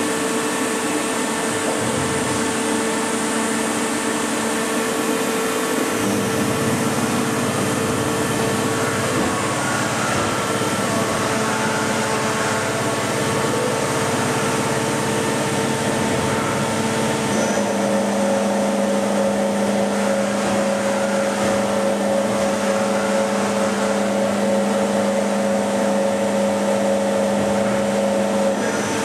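Hankook VTC 85R CNC vertical turning lathe running with its chuck spinning: a steady machine hum with several whining tones, whose pitch steps to a new setting about six seconds in and again past halfway.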